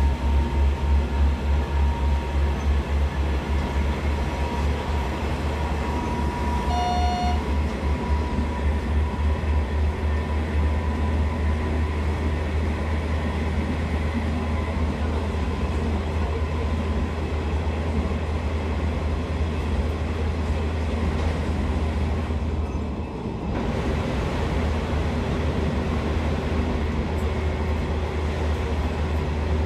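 Passenger train carriage interior noise while running: a steady low rumble with a faint high whine, the rumble pulsing quickly for the first several seconds and then evening out. A short beep sounds about seven seconds in.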